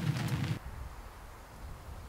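Fire burning in a small steel wood stove, crackling over a steady low rushing sound, stops abruptly about half a second in. After that there is only a faint low wind rumble.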